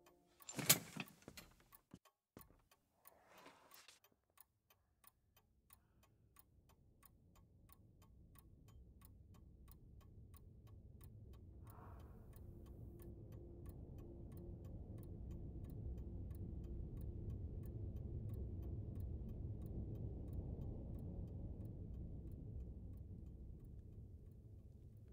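A clock ticking steadily. A sharp click sounds about a second in, and a low rumble slowly swells and fades beneath the ticking.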